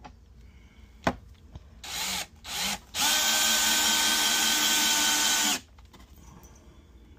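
Craftsman cordless drill driving a 2-inch star-drive deck screw into wood: a click, two short bursts of the motor, then a steady run of about two and a half seconds that stops abruptly.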